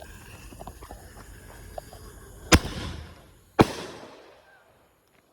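Consumer fireworks going off: a hissing, then two sharp bangs about a second apart, each trailing off briefly before it goes quiet.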